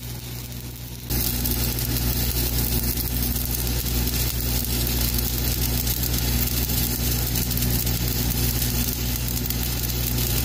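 Stick-welding arc crackling and hissing as a 7018 rod burns into a steel pipe weld, over the steady low hum of an engine running. The sound gets louder about a second in.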